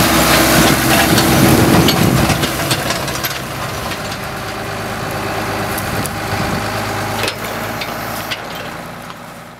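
Ford 8670 farm tractor's diesel engine running steadily while pulling a homemade cover-crop roller, with scattered metallic clanks and knocks. The sound fades away near the end.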